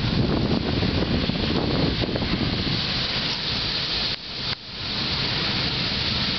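Ocean shorebreak crashing and whitewater rushing up the beach, a loud, dense hiss with a low rumble. It dips briefly about four seconds in, then carries on.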